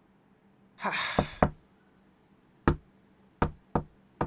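A breathy exhale about a second in, then knocking on a door: about six separate, sharp knocks at uneven spacing.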